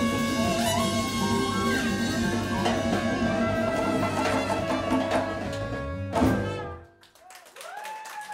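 Live Latin jazz band playing the closing bars of a tune: trumpet, saxophone and flute holding long notes over electric bass, congas and timbales. It ends on a loud accented final hit about six seconds in, then the music stops and only quieter voices are left.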